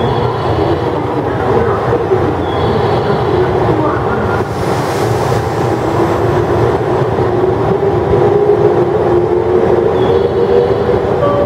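JR West 113 series electric train pulling out of the station, its traction motors whining steadily higher in pitch as it picks up speed, over the rumble of its wheels on the rails. A brief hiss comes around the middle.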